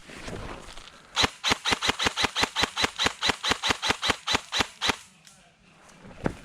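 Airsoft gun firing a rapid string of about twenty single shots, roughly five a second, for nearly four seconds before stopping.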